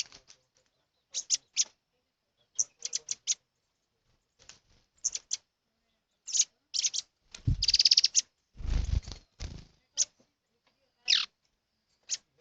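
Wild birds calling: a scatter of short, high chirps, a fast trill a little past the middle, and a single falling whistled note near the end. A few low thumps sound around the middle.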